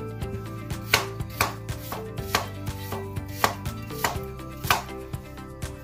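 Kitchen knife slicing peeled green plantain on a plastic cutting board: sharp chops of the blade through the fruit onto the board, a handful at uneven spacing roughly a second apart.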